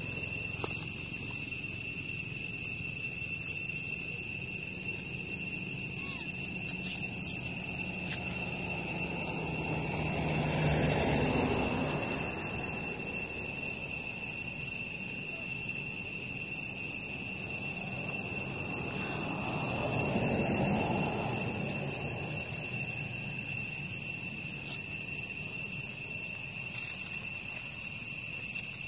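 Steady high-pitched insect drone: one unbroken tone with higher overtones above it. Two slow swells of rushing noise pass about ten and twenty seconds in, and there is a single sharp click about seven seconds in.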